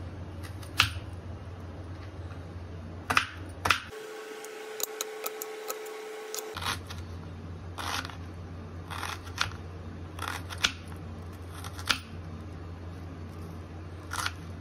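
Kitchen knife chopping an onion on a plastic cutting board: single sharp knocks of the blade on the board, irregular and a second or more apart, over a steady low hum.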